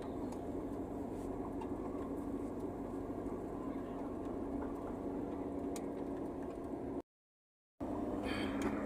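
Steady engine and road hum of a car driving slowly, heard from inside the cabin. The sound cuts out completely for under a second about seven seconds in, then the same hum returns.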